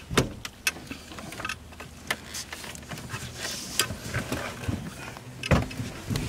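Knocks, clicks and rattles of a loose Ford Bronco steering column being worked past the brake pedal under the dash, with two heavier clunks, one just after the start and one near the end.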